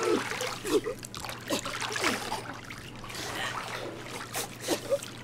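Water trickling and splashing on a wet tiled floor, with a few brief vocal sounds.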